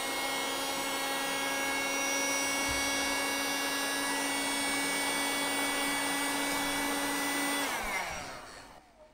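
Hot-air blower shrinking heat-shrink tubing over soldered wire joints: its fan motor runs steadily with a blowing hum and a whine, then switches off and spins down with a falling pitch about eight seconds in.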